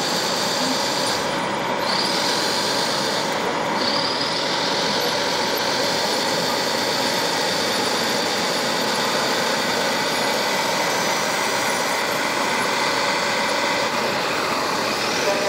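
Radio-controlled Liebherr PR 742 model bulldozers working a dirt pile: a steady whine of electric drive motors and hydraulics over an even background noise, with short rising whines about two and four seconds in as the motors speed up.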